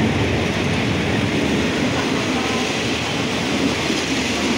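Hitachi diesel-electric locomotive passing at close range as the train pulls into the station, its engine running, followed by passenger coaches rolling by with a steady rumble of wheels on the rails.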